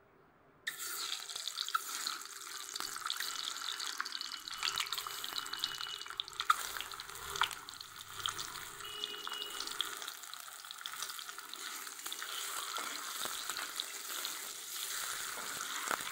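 Whole peeled boiled eggs, coated in turmeric, sizzling in hot oil in a kadhai as they shallow-fry. The sizzle starts suddenly about a second in, when the eggs go into the oil, and carries on steadily with many small crackles and pops.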